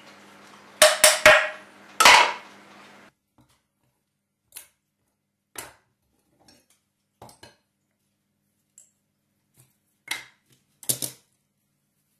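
Metal tools knocking and tapping on a brass water meter body while it is taken apart: a quick run of sharp knocks and one louder ringing hit in the first couple of seconds, then scattered light taps and clicks of a metal punch against the brass, with a small double knock near the end. A faint steady hum stops about three seconds in.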